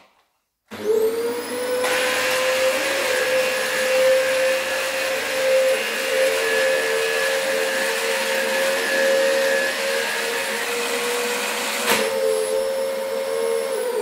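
Corded Dyson upright vacuum cleaner switched on about a second in, its motor spinning up quickly to a loud, steady high whine. There is a click near the end, and the motor starts to wind down right at the close.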